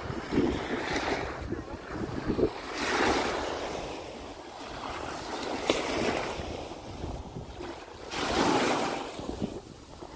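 Small Baltic Sea waves washing up and breaking on a sandy beach, the surf swelling and ebbing about four times, every two to three seconds. Wind buffets the microphone underneath.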